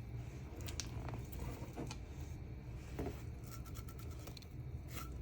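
A few light clicks and scrapes of a spoon against a pot and plate while food is dished out, over a low steady hum.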